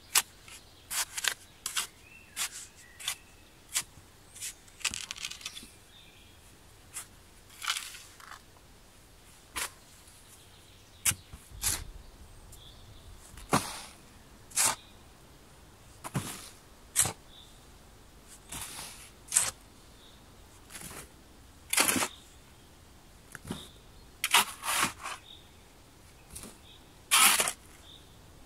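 Steel shovel cutting and scraping into dry sandy soil, in irregular strokes a second or two apart: sharp scrapes and short scooping rasps.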